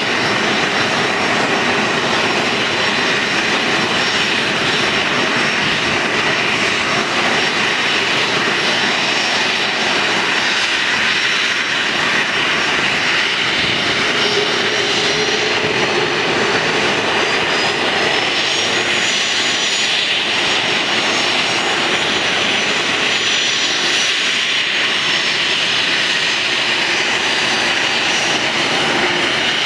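Boeing 737-300's CFM56 turbofan engines running at idle with a steady whine. About two-thirds of the way through, a high whine rises a little in pitch as the engines spool up for the jet to start taxiing.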